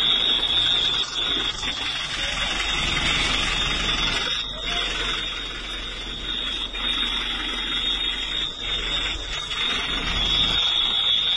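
A continuous high-pitched electronic alarm tone sounds steadily over a noisy, rustling background.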